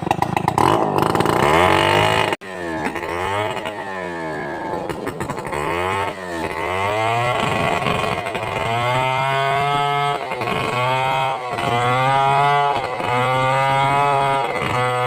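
Stihl 070 two-stroke chainsaw with a nearly worn-out chain running, its engine speed falling and rising again and again. In the second half the cycles come regularly, about one every second and a half. There is a brief sharp break about two seconds in.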